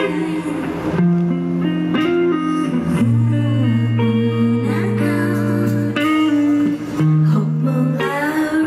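Live band playing an instrumental passage of a pop song, with electric guitar to the fore over held bass notes.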